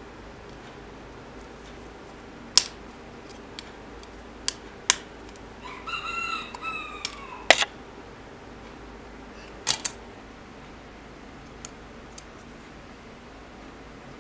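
A handful of sharp, separate clicks as a scored styrene plastic sheet is snapped apart along its scribed lines to free window openings and a side panel, the loudest a little past the middle. Just before that loudest snap a rooster crows once in the background, its call falling in pitch at the end.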